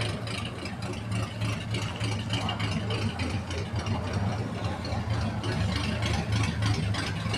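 The flathead V8 of a 1940 Ford car running loudly and steadily at idle, with no revving.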